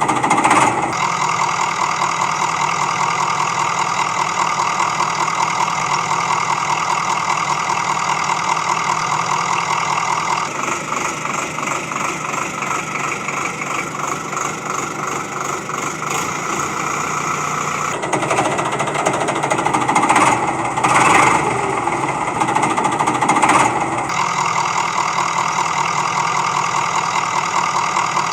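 A small motor or engine running steadily with a fast, even chatter. Its tone shifts about ten seconds in and again near eighteen seconds, with a few short louder surges towards the end.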